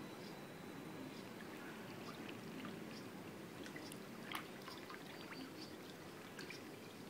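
Faint, gentle lapping and trickling of pool water as a floating body is moved slowly through it, with small scattered drips and one sharper splash-tick about four seconds in.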